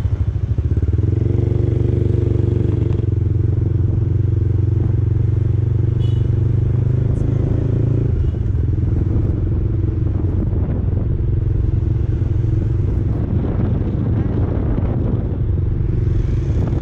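Motorcycle engine running while the bike is ridden, heard from on board. It picks up about a second in and holds a steady note, dips briefly about eight seconds in, then settles again.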